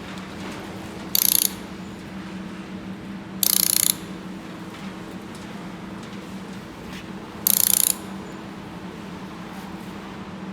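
Laser welding machine humming steadily, broken by three short, loud hissing bursts of about half a second each as the welding gun fires.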